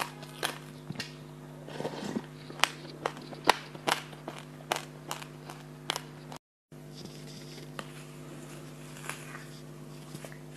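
Quick sharp clicks and crackles from dry black sesame seeds, dense over the first six seconds, then a brief cut-out and only a few scattered clicks. A steady low hum runs underneath.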